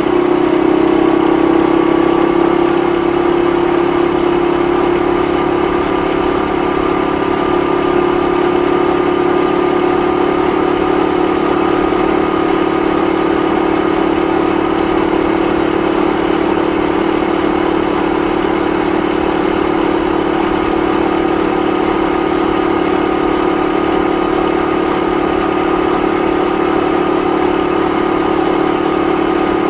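Honda Super Cub 50 (AA01, carburetted) 49 cc four-stroke single-cylinder engine running steadily at a cruise, heard from the rider's seat. Its pitch creeps up slightly over the first few seconds, then holds even.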